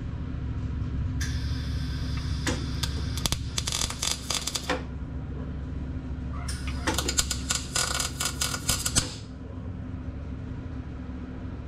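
Gas-shielded MIG welder laying two short tack welds on a coil spring pad on a steel axle tube: two bursts of arc crackle, each about three seconds long, over a steady low hum.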